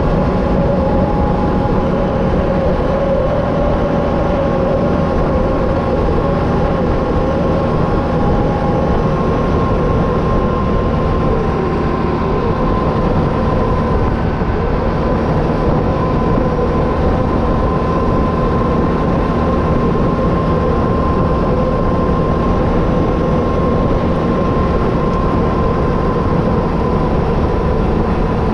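Can-Am Renegade 1000 ATV's V-twin engine running steadily while riding at a constant pace, a continuous rumble with a steady whine over it.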